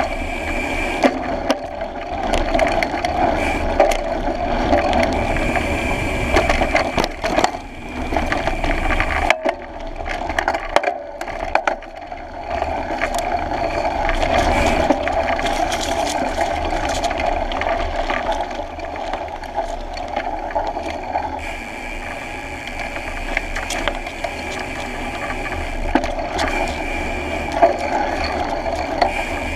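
Mountain bike running fast down a dirt trail: continuous tyre and wind rush with frequent knocks and rattles as the wheel hits bumps and rocks, easing off for a few seconds about a third of the way through.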